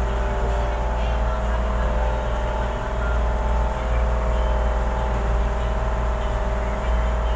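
Ferry's engine running with a steady drone and a deep rumble underneath.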